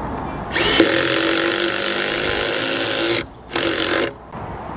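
Cordless drill running into a plywood panel: one long run of about two and a half seconds, then a short second burst after a brief pause.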